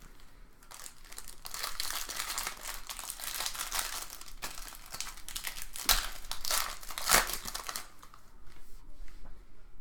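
Foil wrapper of a trading-card pack crinkling and tearing as it is opened, with a couple of sharper crackles near the end.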